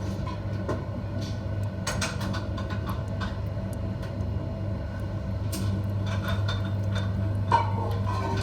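A machine's steady low motor hum, with scattered clicks and knocks over it.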